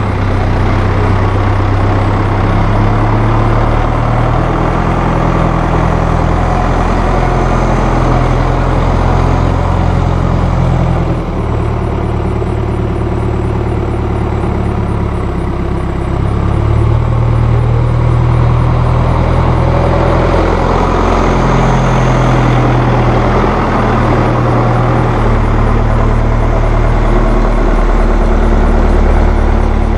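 2001 New Holland TL100 tractor's Iveco 3.9-litre diesel engine running as the tractor drives around, its engine note shifting in pitch a few times. It drops somewhat quieter about eleven seconds in as the tractor moves off, and is louder again from about seventeen seconds as it comes back close.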